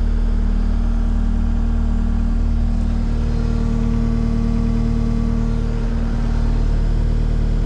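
2017 Case SV280 skid steer's diesel engine running steadily.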